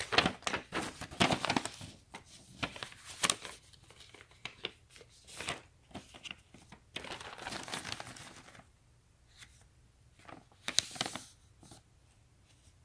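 Packaging being handled: a paper packing slip and plastic mailer crinkling and rustling in short, irregular bursts, with a longer stretch of rustling about seven to eight and a half seconds in.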